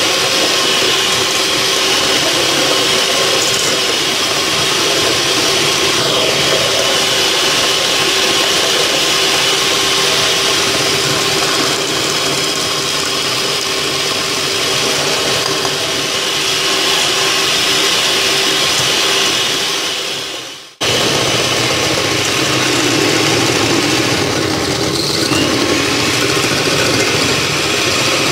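Miyako electric hand mixer running steadily at high speed, its beaters whisking egg yolks and sugar in a stainless steel bowl. The sound dips away about two-thirds of the way through and comes straight back.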